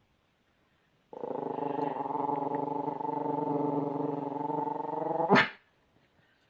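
A dog growling steadily for about four seconds, worked up by talk of a cat, ending in one short, sharp bark.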